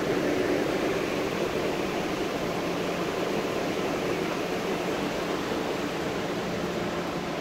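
Steady rushing noise of an underground subway station, with a faint low hum like ventilation fans, easing off slightly.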